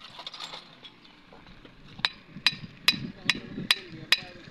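Metal tool working on the cylinder head of a small air-cooled engine. After about two seconds of faint handling noise, sharp metallic clicks begin, evenly spaced at about two and a half a second, each ringing briefly.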